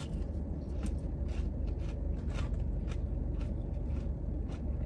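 Crunchy chewing of breaded fried pickle fries with a crispy coating, irregular crunches a few times a second. A steady low hum runs underneath.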